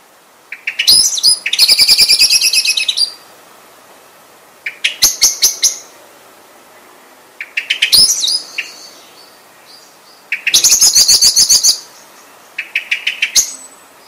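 Common blackbird (Eurasian blackbird) calling in five bursts of rapid, repeated high notes. Each burst lasts one to two seconds, with a few seconds of quiet between them.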